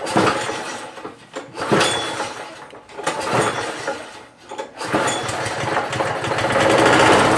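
Walk-behind lawn mower engine being pull-started with starting fluid, cranking over in about four pulls roughly a second and a half apart. About five seconds in it catches and runs raggedly for a couple of seconds. The engine is rigged to run on fuel vapor, and the owner suspects it is getting too much air.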